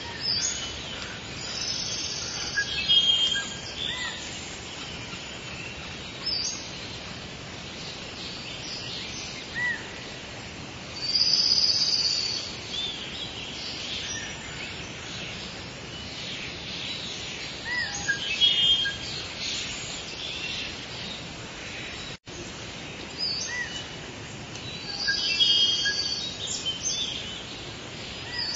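Songbirds chirping and singing in short bursts every few seconds, over a steady background hiss.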